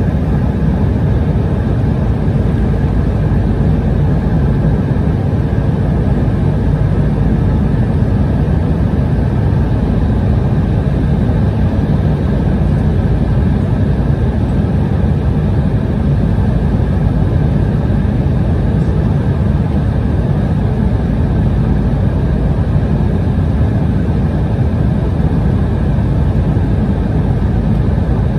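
Steady roar of an airliner's engines and rushing air heard inside the passenger cabin, deep and even throughout.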